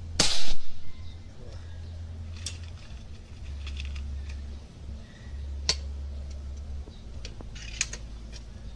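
A PCP-converted Jr Mangio air rifle fires once, a single sharp report just after the start, followed by a few faint metallic clicks as the action is worked to load the next pellet.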